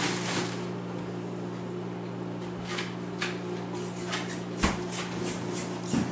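Refrigerator door being opened and things being moved about on its shelves: a series of light clicks and knocks, the loudest about four and a half seconds in and a thump near the end, over a steady low hum.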